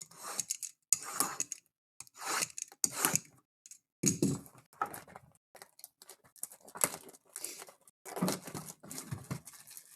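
Packaging of Topps Finest MLS trading-card hobby boxes being torn open and handled: a series of irregular tearing and crinkling rustles.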